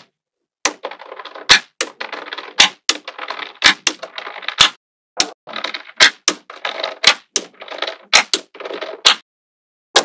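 Small magnetic balls snapping onto a flat grid of magnetic balls: a sharp click about once a second, coming faster in the second half, with a soft clatter of balls shifting and settling between the clicks.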